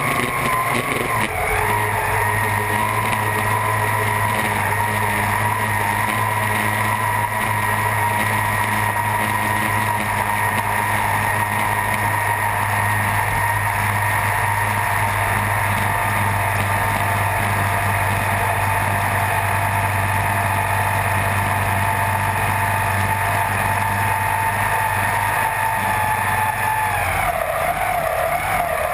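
Supercharged racing hydroplane engine running flat out at a steady high pitch, heard from the boat's deck over wind and water noise. The pitch dips briefly early on and drops near the end as the throttle eases.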